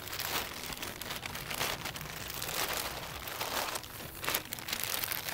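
Plastic grocery bag crinkling and rustling as it is handled and a cardboard piece is pushed into its bottom.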